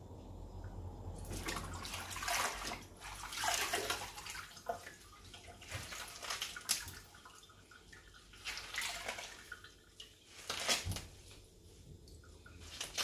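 Green vegetables being rinsed by hand in a bowl of water in a sink: irregular splashing and sloshing of water.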